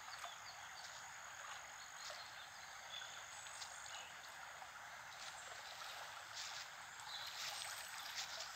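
Faint steady rush of flowing river water, with a few high chirps. Near the end, water splashes and drips as a wet cast net is lifted out of the shallows.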